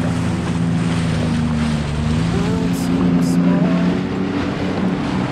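Sea-Doo Fish Pro personal watercraft's three-cylinder engine running steadily at cruising speed, with water rushing under the hull. Its pitch sags slightly about two seconds in and then picks up again, and there are two short hisses around the three-second mark.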